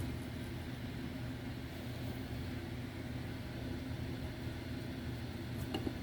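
Steady low mechanical hum over an even hiss, with a brief faint click near the end.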